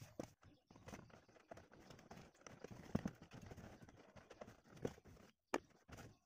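Handling noise in a car boot: the carpet lining rustling as it is pressed and tucked, with irregular light knocks against the plastic trim panel, the loudest about halfway through and a sharp click near the end.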